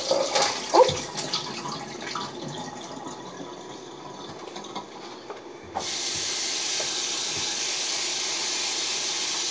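Rinsing beans in a glass bowl at the kitchen sink: water sloshes and splashes with small clicks as it is tipped out of the bowl, then about six seconds in the tap runs in a steady, louder stream into the sink.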